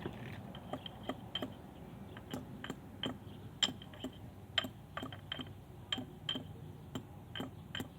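Irregular light metallic clicks and clinks, a few a second, from hand tools working on metal car suspension parts.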